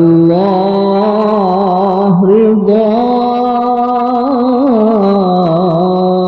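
Sholawat song in Middle Eastern (padang pasir) style: a single melody line drawn out in long held notes with wavering ornaments.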